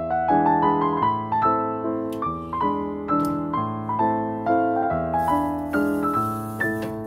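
Background piano music: a gentle melody of struck notes, several a second, over lower sustained notes.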